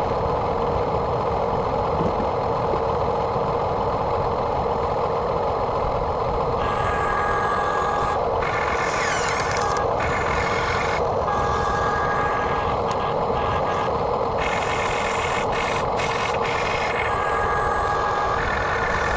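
Radio-controlled backhoe excavator running with a steady mechanical drone. From about a third of the way in, high whining tones switch on and off again and again.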